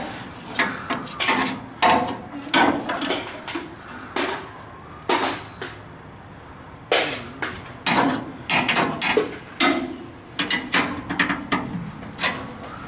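Hand tools clinking on a truck's bumper-bracket bolts: a socket and wrench being fitted and worked, giving irregular sharp metallic clicks and knocks. The clicking stops for about a second and a half midway, then starts again.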